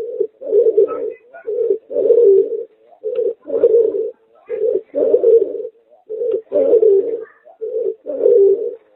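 Merpater, a hybrid of a domestic pigeon and a puter (Barbary dove), cooing in a steady rhythm. Each phrase is a short coo followed by a longer one, repeated six times.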